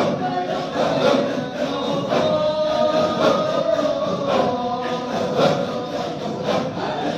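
A group of voices chanting together in unison, a devotional dhikr chant, with sharp strokes keeping a beat about once a second.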